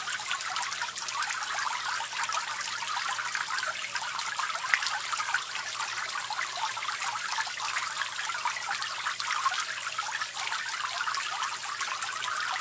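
Small homemade tabletop water fountain running: water pours from a tilted pot into a bowl and spills from a spout into the pool below, a steady fine trickling and splashing.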